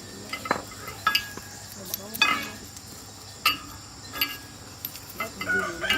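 Hand tools knocking and clinking against metal parts: a handful of sharp, irregularly spaced clicks and knocks over a low hiss.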